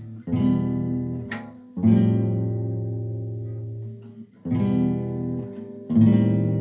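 Guitar music: four strummed chords, each left to ring and fade before the next.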